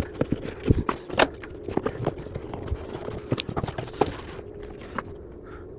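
Irregular metallic clicks and knocks of hand tools working on the bolts of a power steering pump in an engine bay.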